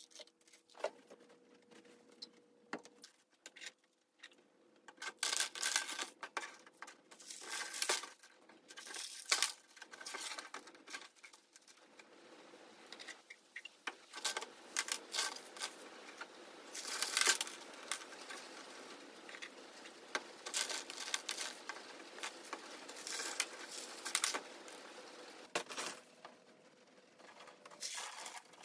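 Expanded clay pebbles (Hydroton) rattling and clattering in uneven bursts as they are scooped and poured from a plastic cup into a plastic net pot around a seedling's rockwool cube.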